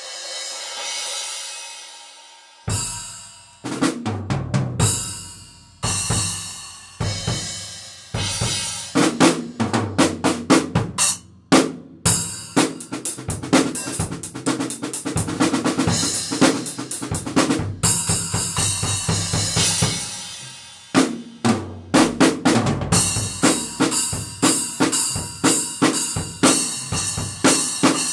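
Drum kit played with Wuhan budget splash cymbals: a splash rings out and decays, then drums and splash crashes play in grooves and fills with short, bright splash hits. The playing pauses briefly near two-thirds of the way through while a cymbal rings, then starts again.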